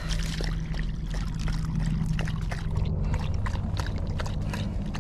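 White mixed-breed dog lapping water from a collapsible silicone bowl, a quick run of wet laps and splashes over a steady low rumble.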